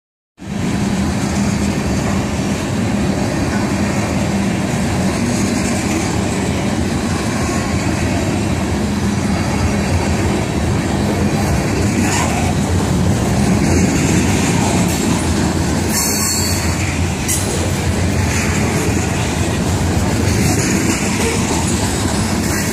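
Freight train of tank cars and covered hopper cars rolling past close by: a loud, steady noise of steel wheels running on the rails.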